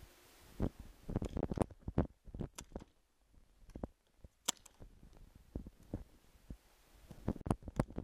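Irregular sharp pops and thuds of paintball play heard up close: markers firing and paintballs hitting bunkers, with a sharp close pop about four and a half seconds in as the player fires a Tippmann TiPX paintball pistol.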